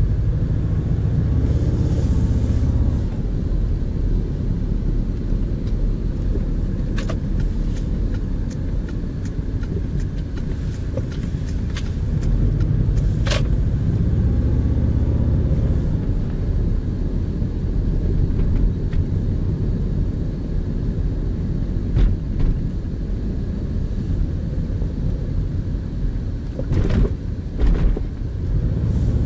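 Cabin sound of a BH5 Subaru Legacy's flat-four engine and road noise while driving slowly, a steady low rumble that swells twice as the car pulls away and speeds up. A few sharp clicks or knocks are scattered through it.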